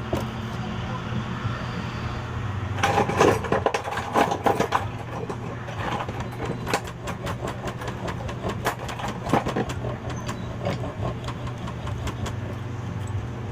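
A steady low mechanical hum runs throughout, with scattered small clicks and taps of small metal parts and tools being handled, busiest about three to five seconds in.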